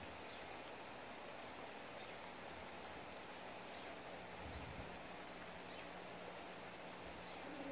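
Faint steady outdoor hiss, with short, faint high chirps about once a second and a soft low rumble around the middle.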